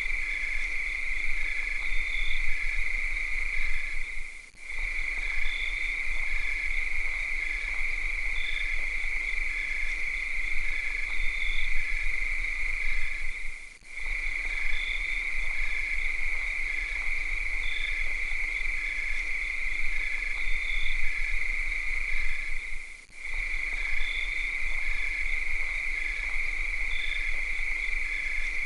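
Cicadas singing in a steady, high-pitched drone, with a fainter pulsing chirp about twice a second beneath it. The whole chorus drops out briefly about every nine seconds.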